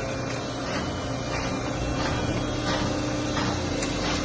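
Horizontal baler running: a steady mechanical hum with a few faint knocks.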